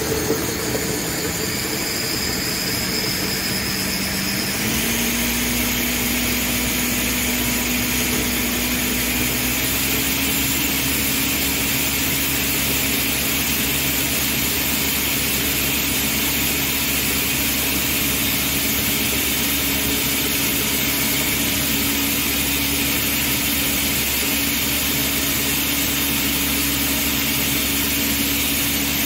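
Ninja countertop blender running, puréeing chopped onion, bell peppers and red chilies with a little broth. The motor's pitch steps up about four seconds in and again about ten seconds in, then holds steady.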